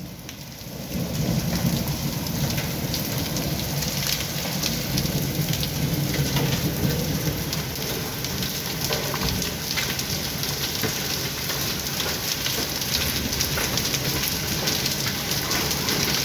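Heavy rain pouring down and splashing on hard surfaces: a steady, dense hiss of many drops. It swells up in the first second or two, with a low rumble beneath it through the first half.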